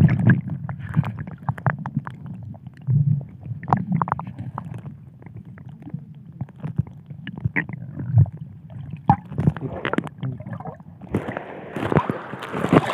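Muffled underwater sound from a submerged phone microphone: a low rumbling and gurgling of moving water with scattered pops and knocks. About eleven seconds in, the microphone comes back out of the water and splashing water and wind noise take over.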